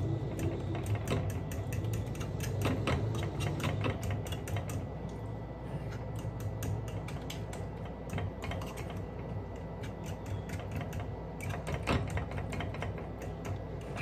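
Metal fork beating eggs and tapioca flour in a ceramic bowl, a quick, continuous run of clinks and scrapes as the tines strike the bowl.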